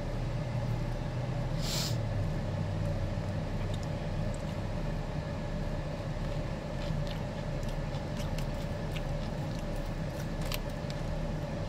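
Steady hum of a car's running engine and fan, heard from inside the cabin, with a few faint light clicks.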